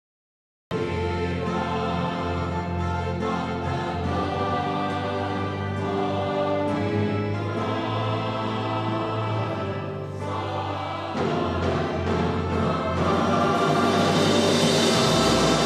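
Mixed church choir singing a hymn, accompanied by a two-manual electronic organ with sustained bass notes. The music cuts in abruptly just under a second in and swells louder near the end.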